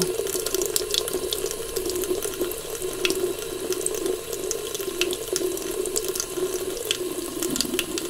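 Bathroom tap running steadily, water pouring into a basin with a constant rushing sound and a steady low note in the pour, with a few small splash ticks.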